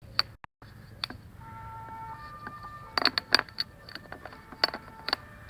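Irregular hard clicks and knocks, several close together about three seconds in, with faint steady tones in between.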